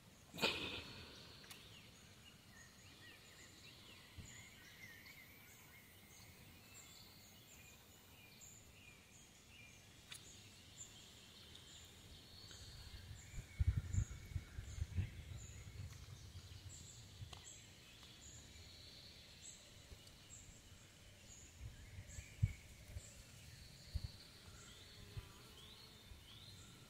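Outdoor pond ambience with birds calling and a high chirp repeated about twice a second. A sharp knock sounds right at the start, and bursts of low thumps and rumble on the microphone come about halfway through and again near the end.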